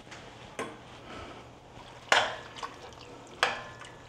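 A spoon clanking sharply against a stainless steel pot three times, with faint sloshing of broth being stirred.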